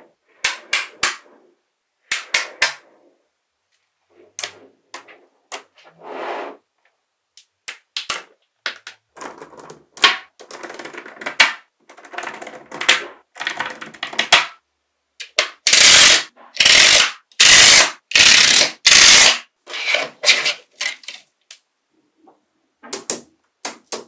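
Small magnetic balls clicking and clacking together in quick clusters of sharp snaps as rows and sheets of them are pressed and laid against each other. About two-thirds of the way through come four longer, louder rattling bursts, each about half a second, as whole sheets of balls shift against each other.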